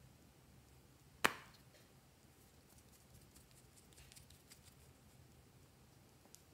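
Plastic cap of a lip balm tube pulled off with a single sharp click about a second in, followed by faint small clicks from handling the tube.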